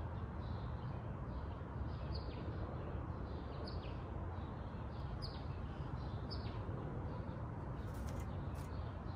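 Small birds chirping: short high chirps that fall in pitch, every second or so, over a steady low background rumble. About eight seconds in, a quick run of sharp flutters as a blue jay's wings beat while it flies in to land.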